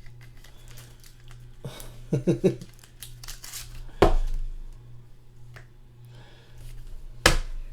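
Trading cards and pack packaging being handled on a table, with light rustling and crinkling and two sharp knocks about four and seven seconds in.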